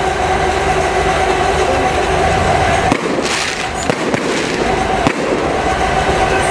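Fireworks going off inside a burning warehouse: sharp bangs about three, four and five seconds in, with crackling, over a continuous loud roar and a steady hum.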